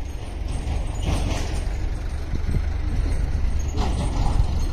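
Truck engine running with a steady low rumble, with two short hisses, about a second in and near the end.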